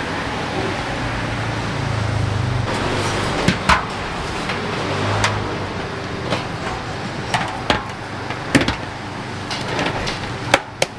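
Street-food stall noise: a steady hum of road traffic, with irregular sharp clinks and knocks of cooking utensils about a dozen times.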